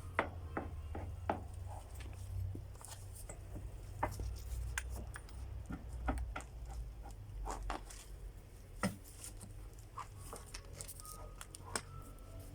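Irregular sharp knocks and clicks of hand-tool work on wood, such as prying off nailed slats, spaced unevenly a second or so apart, over a steady low rumble.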